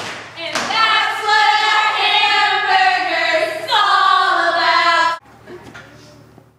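A group of voices singing together in long held notes, cutting off abruptly about five seconds in.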